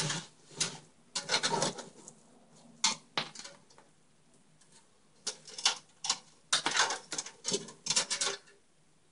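Objects being picked up, shifted and set down on a work surface: irregular knocks, clatters and rustles in short bursts with brief pauses between them.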